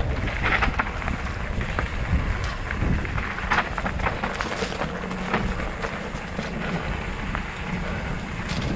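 Santa Cruz Chameleon hardtail mountain bike on 27.5+ tyres riding downhill over a dirt and rock trail: tyres crunching and the bike clattering over rough ground in many quick knocks, with wind rumbling on the helmet-mounted microphone.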